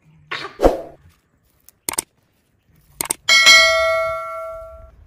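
Subscribe-button sound effect: a short burst of noise, two quick double clicks, then a bell ding that rings for about a second and a half before fading.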